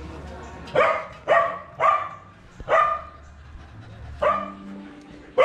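Dog barking: about six short, sharp barks at an uneven pace.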